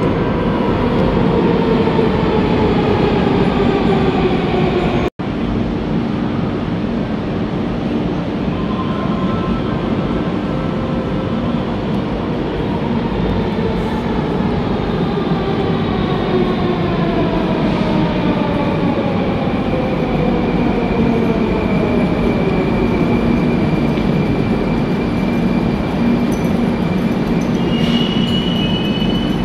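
Moscow metro train running, a steady loud rumble of wheels and car body. The electric traction motors whine in tones that slide down in pitch as the train slows, once at the start and again through the middle. There is a brief dropout about five seconds in.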